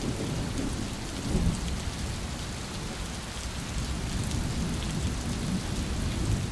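Steady rain with rumbles of thunder, one low rumble swelling about a second and a half in.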